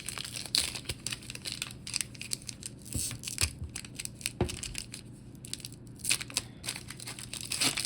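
Foil trading-card booster pack wrapper being crinkled and torn open, an irregular run of crackles and crinkles with a few sharper snaps near the middle.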